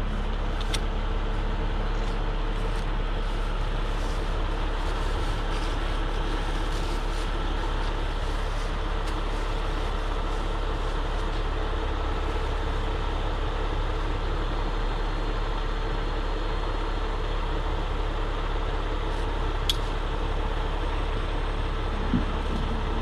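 Heavy rotator tow truck's diesel engine running steadily with an even hum, keeping the boom hydraulics powered during a lift. Two short clicks sound, one near the start and one near the end.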